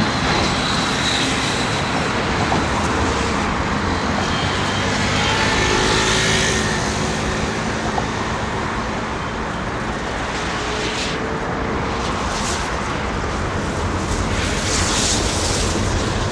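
Boeing 757 jet engines running with a steady roar as the airliner rolls out after touchdown, swelling around six seconds in.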